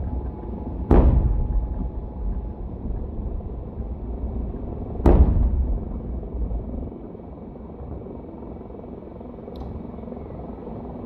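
Two aerial firework shells bursting with deep booms, about four seconds apart, each followed by a rolling echo that dies away, over a steady low background rumble.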